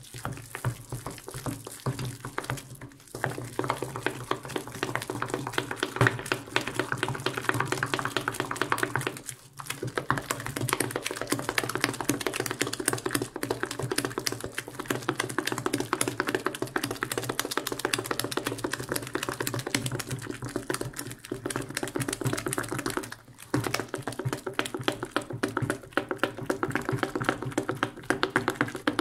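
Wooden spoon stirring a thick sweet potato filling in a glass bowl: a fast, continuous run of clicks and scrapes against the glass, with a few brief pauses.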